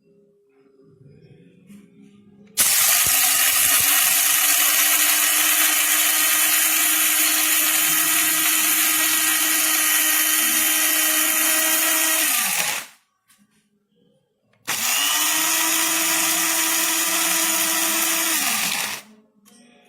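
Bodum Bistro electric blade coffee grinder's motor running with a steady high whine in two presses. The first lasts about ten seconds; after a pause of about two seconds, the second lasts about four. Each winds down with a falling pitch when the button is released.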